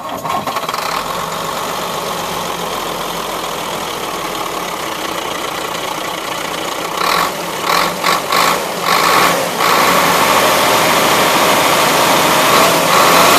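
1998 Ford F-Series water truck's engine coming on suddenly at the start and running steadily at idle. About seven seconds in it is revved in several short blips, then held at a higher, louder steady speed.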